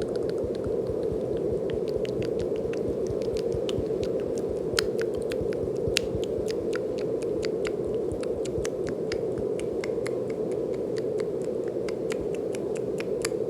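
Steady brown noise, a deep even rushing hiss, with a scatter of light, irregular clicks over it and two louder clicks about five and six seconds in.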